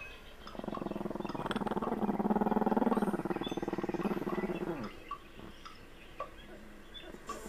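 A dog growling low and rough for about four seconds, loudest in the middle and trailing off with a falling pitch.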